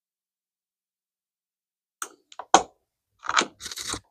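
Small hand tools and reel parts being handled: a few sharp clicks starting about two seconds in, then a short clatter near the end as a screwdriver is laid down.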